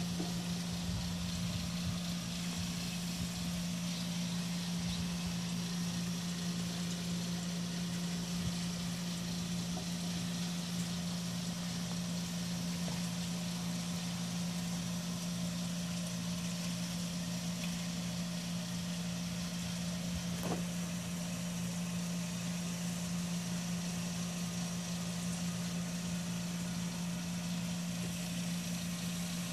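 A steady low mechanical hum over a constant hiss, unchanging throughout, like a running motor or pump.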